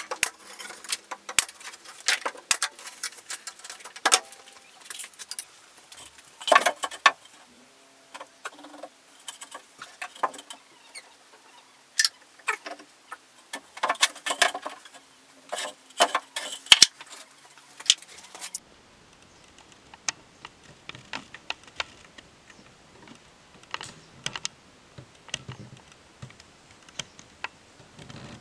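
Irregular light clicks, taps and knocks of wooden slats being handled and fitted, with a few louder knocks.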